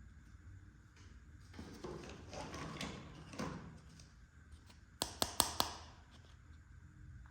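Small plastic toy kitchen pieces being handled: a stretch of rustling and scraping, then four sharp clicks in quick succession about five seconds in.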